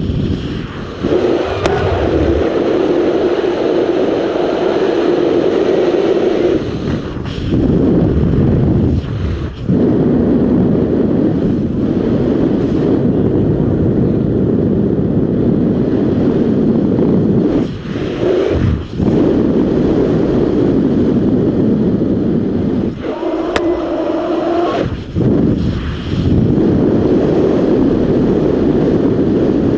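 Rushing airflow of a hang glider in flight buffeting a helmet camera's microphone: a loud, steady wind noise that dips briefly a few times, with a low hum coming in near the start and again later on.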